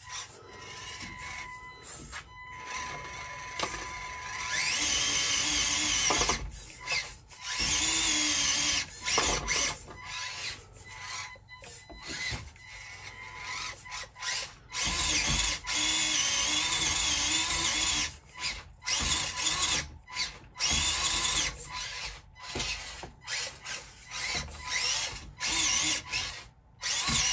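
Small electric motor and geared drivetrain of a 1/24-scale micro RC crawler whining in repeated bursts of throttle as it struggles to climb from sand up onto a rock. The first burst comes about four and a half seconds in.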